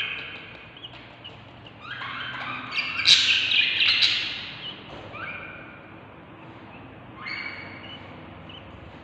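Budgerigar chicks begging for food in a nest box with raspy, chirping calls that come in bouts. A loud burst of overlapping calls comes about two to four seconds in, with shorter calls around five and seven seconds.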